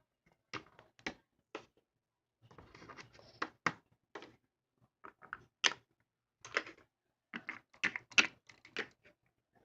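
Small plastic toy figurines being handled and moved on a hard surface: irregular light clicks and taps in small clusters, with short pauses between.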